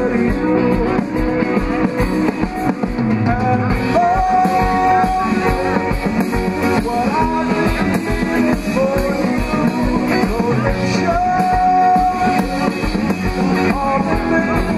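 Rock music with a singer, guitar and drum kit playing steadily, with long held melody notes.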